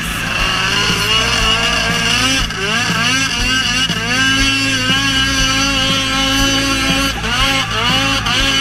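Polaris snowmobile engine running hard as the sled skims across open water. Its pitch rises and falls again and again with the throttle, over a steady hiss of spray.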